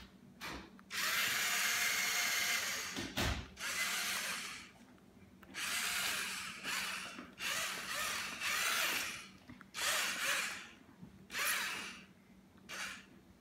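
LEGO Mindstorms NXT servo motors whirring in repeated bursts of a second or two as the robot drives and turns, with short pauses between the bursts.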